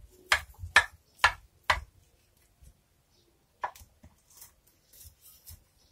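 A kitchen knife cuts a baked potato-and-herb savory cake in a glass baking dish. There are four sharp knocks about half a second apart in the first two seconds, then another a little before four seconds, as the blade cuts down to the glass.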